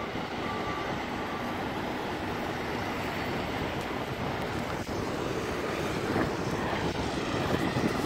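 Construction machinery engines running steadily: the orange telehandler forklift lifting a pipe and the pile-driver rig idling. It is a continuous, even drone with no hammer strikes.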